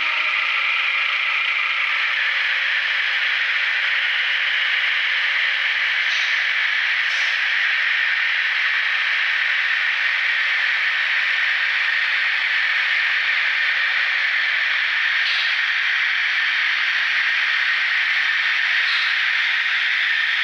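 Sound-equipped HO-scale KiHa 82 diesel railcar models running by, their DCC sound decoders playing diesel engine sound through small speakers along with the models' own mechanism and wheel noise as one steady running noise. A set of steady tones dies away about two seconds in, and a few short clicks come through.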